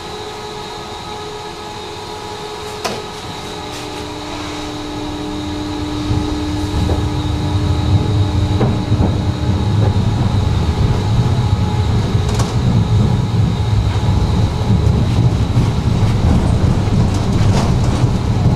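Tram gathering speed. The low rumble of wheels on rails builds over the first several seconds and then holds steady. A steady hum is heard through the middle, and there are a few sharp clicks.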